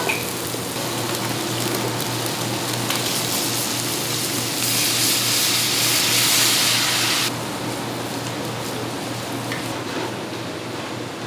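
Food sizzling in a hot frying pan over a steady low kitchen hum. About halfway through the sizzle grows louder and brighter for nearly three seconds as sauce is poured over sliced meat and onions, then drops back suddenly. A single sharp knock comes right at the start.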